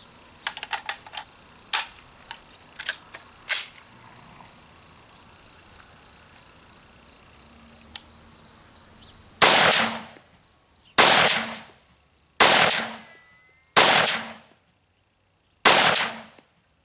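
A short-barrelled AR-15 in 300 Blackout fires five single shots, about a second and a half apart, each followed by a brief ringing tail. A few sharp metallic clicks come first, and steady insect chirring runs underneath.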